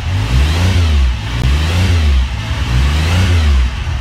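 A motorcycle engine being revved in repeated throttle blips, its pitch rising and falling several times, about once a second.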